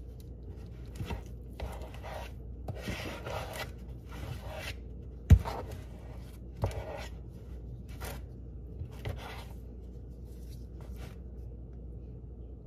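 Squeeze-handle metal ice cream scoop scraping soft cookie dough out of a mixing bowl: a run of short scrapes and clicks, with one sharp knock about five seconds in, the loudest sound.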